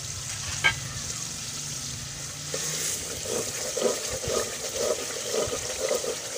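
Thick turnip-and-masala gravy sizzling in a metal pot, with a single sharp clink about a second in. From about two and a half seconds in, a metal ladle stirs and scrapes through it in quick repeated strokes.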